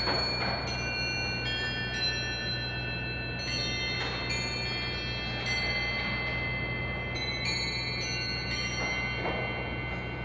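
A large English bracket clock's chime bells play a tune. Notes of several different pitches are struck about every second, and each rings on and overlaps the next.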